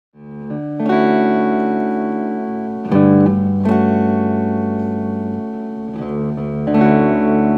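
Guitar music: ringing chords held out, with a new chord struck about a second in, again near three seconds and near seven seconds.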